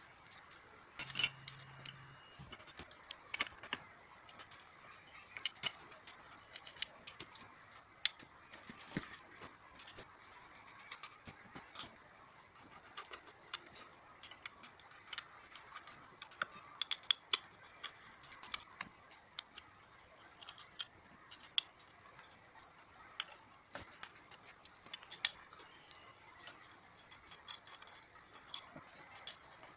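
Irregular sharp clicks and taps of small steel screws and an Allen key against the drill's housing and a hard tabletop, as the housing screws are turned out and set down one by one.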